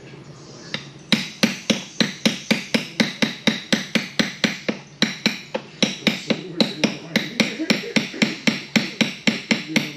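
Hammer blows struck in a quick, even rhythm, about three to four a second, starting about a second in.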